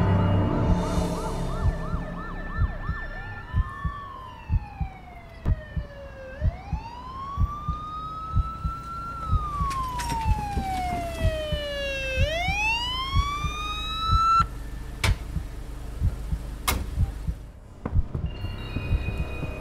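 An emergency-vehicle siren wails, its pitch sliding slowly down and sweeping quickly back up twice. Under it runs a steady pulse of low thumps, and a few sharp clicks come near the end.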